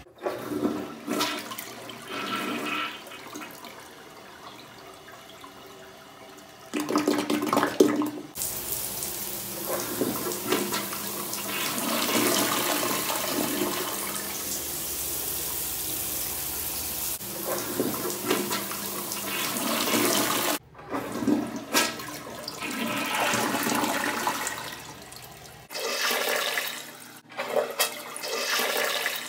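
A toilet being worked with a rubber plunger, water sloshing in the bowl in short bursts, then the toilet flushing, with long rushes of water swirling down the drain, broken by a few abrupt breaks.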